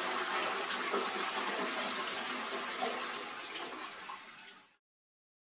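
Toilet flushing: water rushing through the bowl, slowly dying away, then cut off abruptly near the end.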